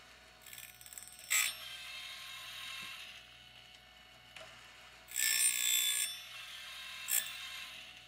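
Woodland Mills RS30 Pro sawmill blade sharpener running its cycle: the grinding wheel spins steadily, with short clicking and rasping bursts as the blade is advanced and a tooth is ground. The loudest grinding burst comes about five seconds in and lasts about a second, with sharp clicks about a second in and near the end.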